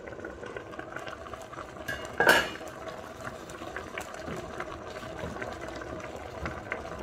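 Tomato-based okra sauce simmering in a stainless steel pot, a steady bubbling with many small pops. A stainless steel pot lid clanks once a little over two seconds in.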